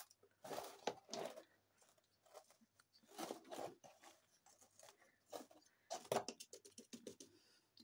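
Hand pressing and brushing loose potting soil in and around a small plant pot on a plastic tray: faint, scattered crunching and rustling.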